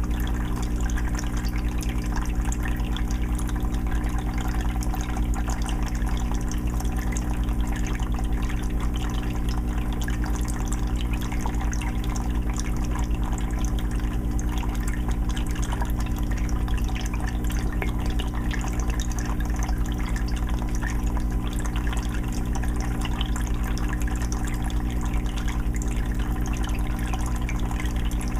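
Aquarium water filter running: water trickling and splashing into the tank with a steady low hum from the filter motor.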